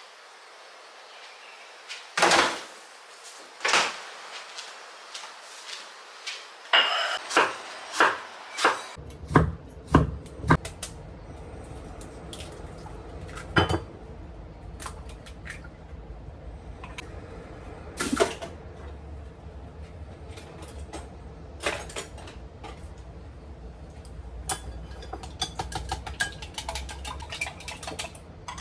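Kitchen clatter: dishes, utensils and cupboards knocked and clinked in a string of separate sharp hits, the loudest in the first third. From about nine seconds in a low steady hum starts and keeps on under quicker, lighter clicks.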